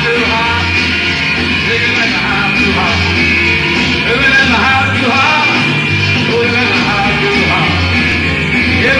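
A live rock and roll band playing, with a voice singing over it.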